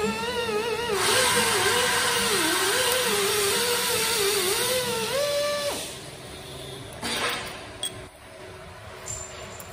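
Electric hydraulic pump whining under load while the HPR20-CP1500 collet-type tube puller draws a tube stub from a heat-exchanger tube sheet. The pitch wavers and a rushing hiss joins about a second in. Both cut off abruptly about six seconds in, followed by a couple of short sharp clicks.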